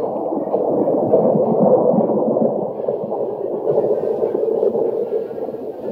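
Thunder rolling in a long, low, continuous rumble that swells and eases without a sharp crack.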